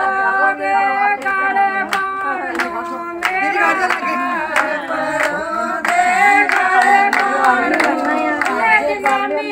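A group of women singing a wedding song together while clapping their hands.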